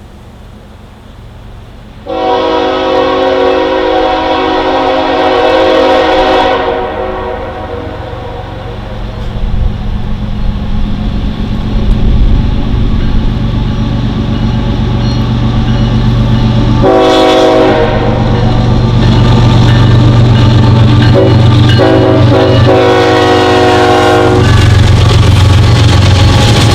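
Air horn of a CN freight train's lead diesel locomotive, an ES44AC, sounding a chord. It gives one long blast of about four seconds, then after a pause a short blast and a run of blasts with brief breaks. Under the horn, the locomotives' low engine rumble grows louder as the train approaches.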